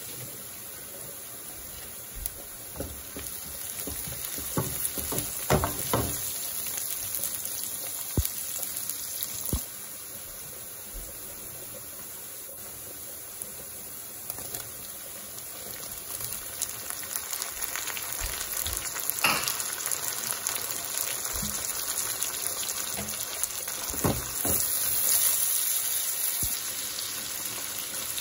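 Chopped onions, curry leaves and ginger-garlic paste sizzling in hot oil in a frying pan, with scattered short knocks and scrapes from stirring.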